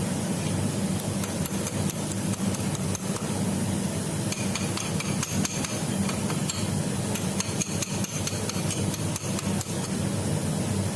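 Irregular light taps and knocks, over a steady low hum.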